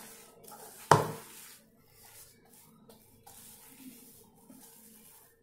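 Potato masher pressing boiled chana dal in a bowl: one sharp knock about a second in, then a few faint knocks and soft pressing sounds over a faint steady hum.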